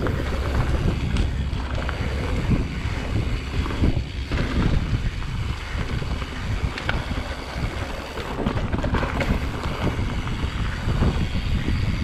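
Wind buffeting the microphone and the rumble of a mountain bike rolling fast over a dirt and gravel singletrack, with occasional knocks and rattles from the bike over rough ground.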